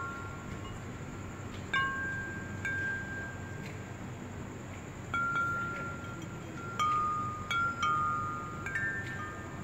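Wind chimes ringing: sparse, irregular strikes of clear high tones, each ringing on for a second or so.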